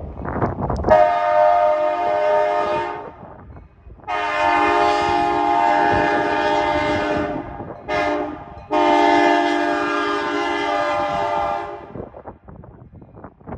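Locomotive 3525's multi-tone horn sounding four blasts: long, long, short, long, the pattern of a grade-crossing signal. Rumbling noise from the train runs before the first blast and after the last.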